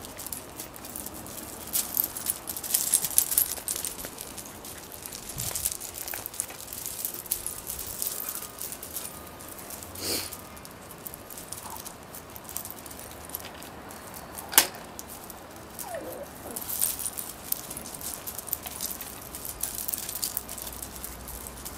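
Slate chippings clattering and crunching in many quick irregular clicks under miniature labradoodle puppies scampering and tussling, with one sharp knock about two-thirds of the way through.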